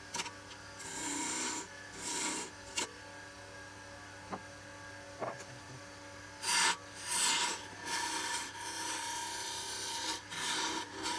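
Wood lathe running with a steady hum while a turning tool scrapes across the spinning wooden door-knob blank in short passes, several brief strokes and then a longer run near the end.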